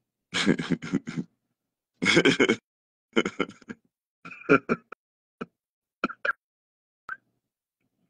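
A man laughing: bursts of pulsed laughter that grow shorter and further apart and trail off.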